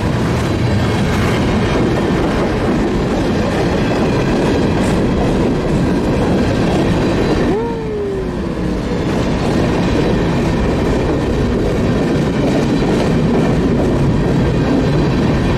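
Freight train cars rolling steadily past, their wheels running on the rails. About seven and a half seconds in, a brief squeal falls in pitch.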